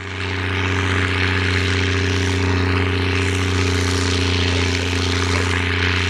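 International 1455 XL tractor's six-cylinder diesel, breathing through a replacement exhaust, running steadily under the load of a three-furrow plough in heavy wet clay. It fades in at the start, then holds a constant deep pitch.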